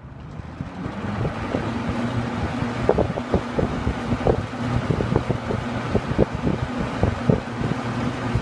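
Hunter model 11027 20-inch two-speed box fan switched to high, spinning up over the first second or so, then running with a steady rush of air. The airflow buffets the microphone in uneven gusts.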